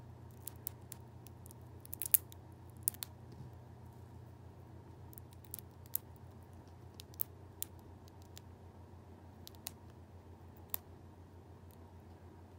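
Dry, ripe Tecoma stans (yellow bells) seed pod crackling in short, sharp clicks as fingers pry it open along its seams, the loudest snap about two seconds in and scattered smaller ones after. A low steady hum underneath.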